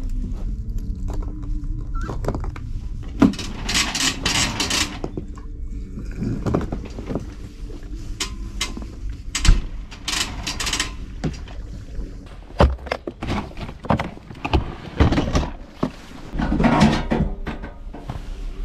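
Handling noises at a motorhome's service hatch: a string of knocks and thumps from a hose and camper fittings being moved, with a few short bursts of hiss over a steady low rumble.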